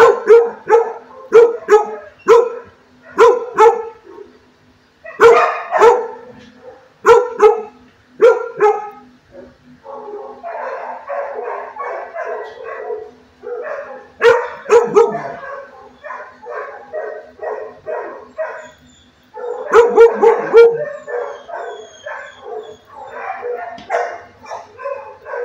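Dogs barking repeatedly in a shelter kennel block: loud, sharp barks come in quick runs, with quieter, denser stretches of barking in between.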